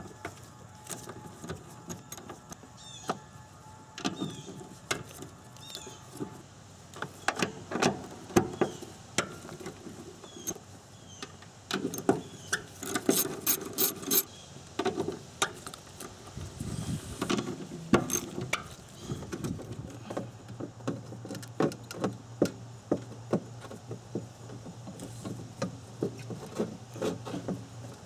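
Hand ratchet with an 8 mm socket clicking in quick runs as it backs out the bolts holding a Subaru fuel pump in the tank, with sharp clinks of metal parts in between. A steady low hum comes in about two-thirds of the way through.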